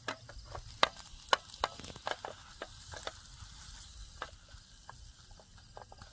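Butter sizzling in a frying pan on a portable gas stove as a pav bun is heated in it, with a scatter of sharp crackles and pops.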